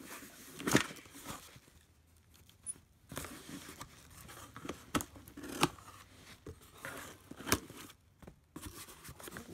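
Cardboard shipping box being opened by hand: flaps pulled apart with tearing and scraping, and several sharp cardboard snaps, the loudest about a second in.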